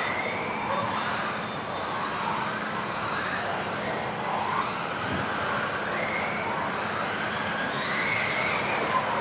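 Several electric RC off-road buggies racing: their motors whine in overlapping glides that rise and fall as the drivers throttle on and off, over a steady hiss.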